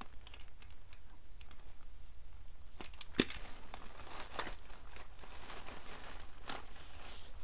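Packaging rustling and crinkling as it is handled and opened, with scattered small clicks and one sharper click a little over three seconds in.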